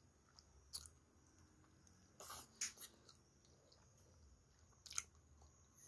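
Faint, close-up chewing of a mouthful of creamy pasta, with a few short wet mouth smacks about a second, two and a half seconds and five seconds in.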